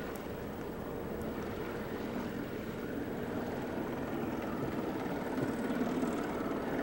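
Steady drone of a distant engine with a faint hum in it, getting slowly a little louder toward the end.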